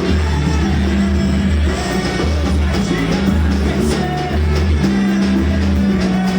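A pagode band playing a song, with a singer over a steady bass line and percussion.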